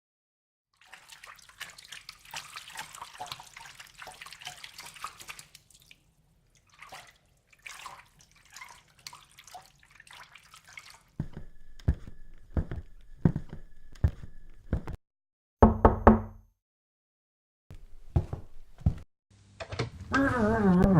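Running and dripping water sound effects, crackly and splashy at first and then broken into scattered drips. These give way, a little past the middle, to a steady run of knocks about two a second, then a few louder thumps. A hummed tune begins near the end.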